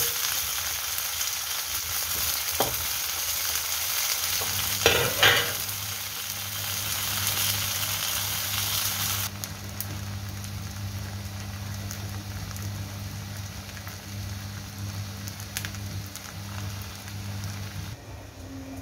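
Slices of Chinese New Year cake sizzling as they pan-fry in oil in a wok, with sharp knocks about two and five seconds in. The sizzle drops to a quieter hiss after about nine seconds, over a low steady hum.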